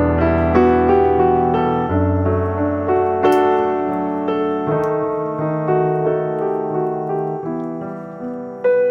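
Background piano music: a gentle melody over sustained chords, notes struck every half second or so.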